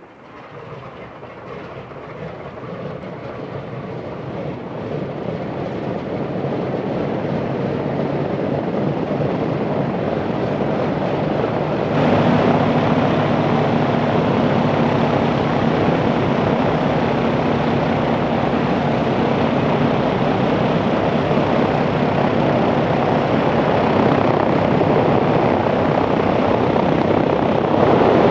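Boeing B-29 Superfortress's Wright R-3350 radial engines starting up and running, the sound growing steadily louder over the first twelve seconds, then jumping louder about twelve seconds in and holding a steady drone.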